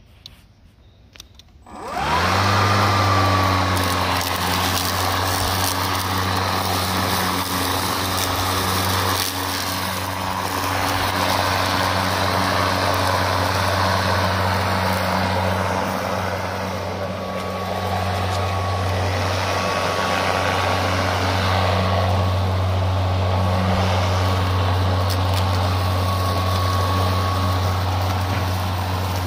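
Greenworks Pro 60 V brushless 21-inch cordless lawn mower starting about two seconds in with a quick rising whine, then running steadily with a constant low hum as its blade cuts thick grass.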